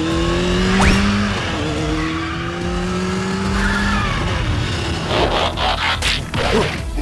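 Dubbed car sound effect: an engine revving, its pitch climbing slowly, over a skidding, wheelspin hiss. About five seconds in it gives way to a burst of quick mechanical clicks and clanks as the toy changes back into a robot.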